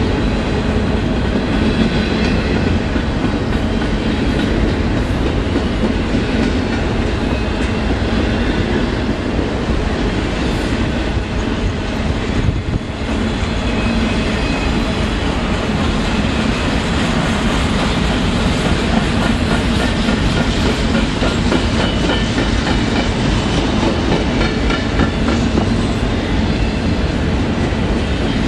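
Union Pacific freight trains rolling past: intermodal well cars stacked with containers go by close, with a manifest train crossing the bridge behind. A steady rumble with the clickety-clack of wheels over rail joints, dipping briefly about halfway through.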